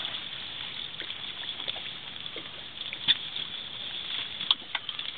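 Water lapping and sloshing against the side of a small fishing boat, with a couple of sharp knocks, one about three seconds in and another about a second later.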